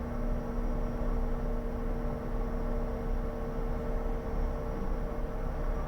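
Steady cockpit hum of a Bombardier Challenger 350 on the ramp, an even noise with a few constant tones that do not change in pitch.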